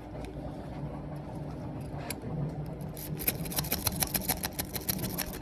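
A lock pick working the pin tumblers of a large Ace padlock: rapid small metallic clicks, growing busy from about three seconds in, over a steady low hum.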